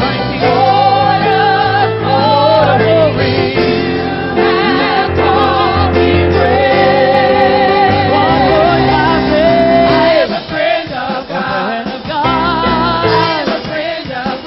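Gospel praise team and choir singing with keyboard and bass accompaniment.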